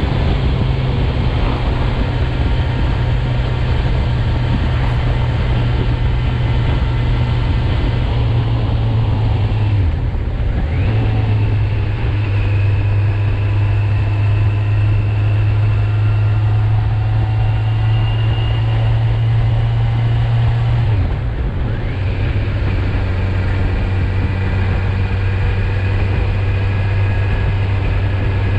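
2019 Kawasaki Z900's inline-four engine, in its 35 kW A2-restricted form, running under load while riding. The engine note briefly cuts out about ten seconds in and again about twenty-one seconds in, each time settling back at a slightly lower pitch, as with upshifts.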